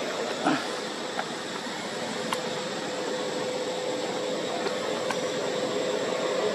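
Steady background noise of distant road traffic, with a faint engine hum growing about two and a half seconds in, and a few light clicks.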